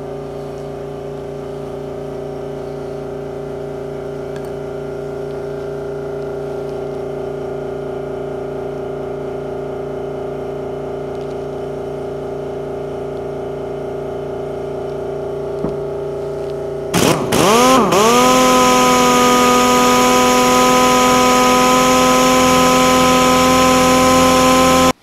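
A steady machine hum runs until about seventeen seconds in. Then a Central Pneumatic 1/2-inch air impact wrench is triggered: a few quick blips dipping and rising in pitch, then it spins freely with a steady, louder whine and a hiss of exhausting air. The freshly cleaned and oiled wrench is being test-run.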